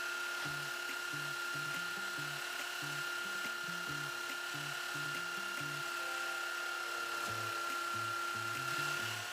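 Belt sander running steadily with a constant whine, sanding the edge of a thin plywood disc down to the line.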